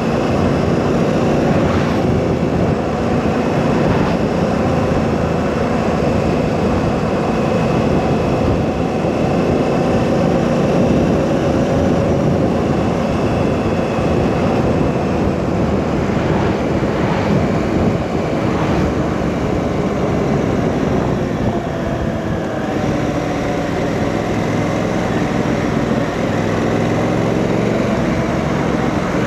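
Honda Africa Twin CRF1000's parallel-twin engine running steadily at road speed, with wind rush over the microphone. About three quarters of the way through, the engine note drops a little and then climbs again.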